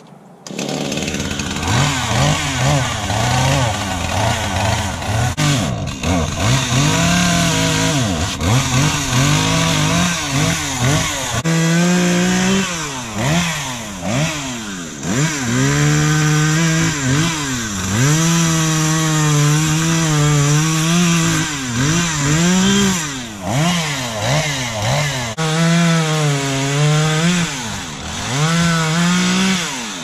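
Chainsaw cutting up downed tree trunks. It starts suddenly about half a second in, then revs up and holds at full speed through each cut before dropping back between cuts, over and over.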